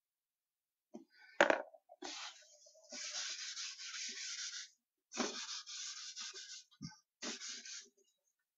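Charcoal drawing on newsprint being rubbed and scraped by hand against the drawing board, in three stretches of dry scratchy rubbing, after a single sharp knock about a second and a half in.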